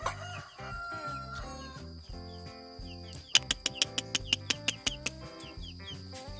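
Background music with a steady beat and a run of evenly spaced clicks in the middle, with short, high, falling bird chirps repeated over it.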